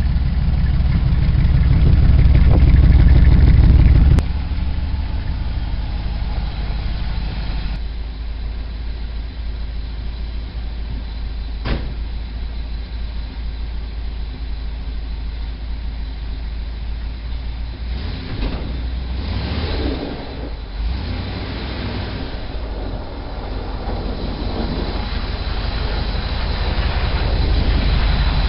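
Car engine running shortly after a cold start in freezing weather. It runs loud for about four seconds, then drops suddenly to a lower, steady idle. The sound wavers briefly past the middle and builds again near the end.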